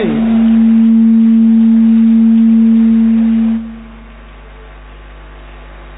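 A loud, steady low tone with a fainter overtone, held for about three and a half seconds and then dying away.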